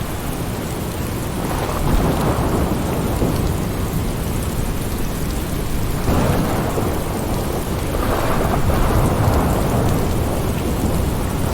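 Steady rainfall with rolling thunder that swells and fades three times, about two, six and eight seconds in.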